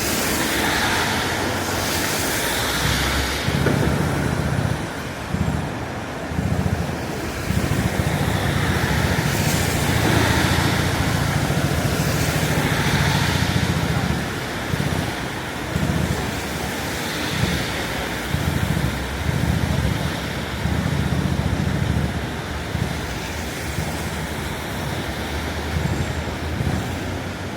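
Road traffic on a rain-wet city street: tyres hiss as cars pass every few seconds over a continuous, uneven low rumble.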